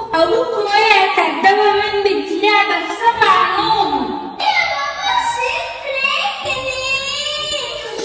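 A high voice singing a slow song, with long held notes that waver in pitch.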